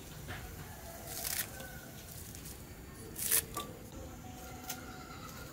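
Scissors snipping spring onions into a bowl: several short, sharp snips spread apart, the loudest about three seconds in.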